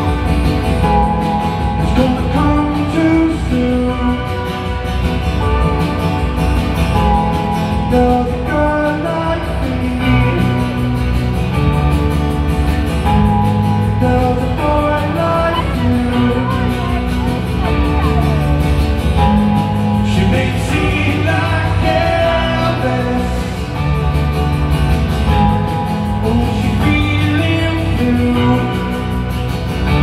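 Rock band playing live in an arena, heard from among the audience: a male singer's vocals over electric and acoustic guitars with a steady beat.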